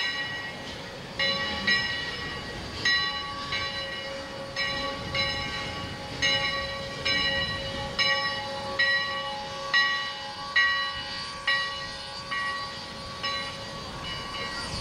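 Steam locomotive bell on Sierra Railway No. 3, a ten-wheeler, ringing in an even rhythm, a little more than one strike a second, each strike ringing on into the next.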